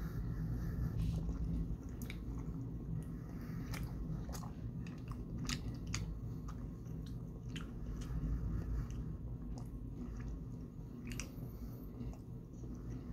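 Close-up chewing and biting of soft taro fudge: wet mouth clicks and smacks scattered throughout, over a low steady hum.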